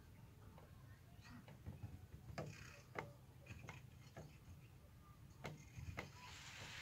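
Near silence: faint outdoor background with a low rumble and a few scattered faint ticks.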